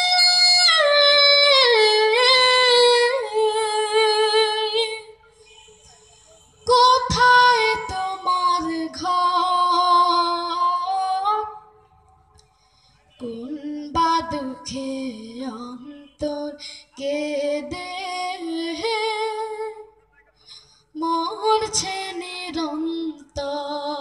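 A Bengali Islamic gojol being sung: a single melodic vocal line in long, wavering phrases, with short pauses between phrases.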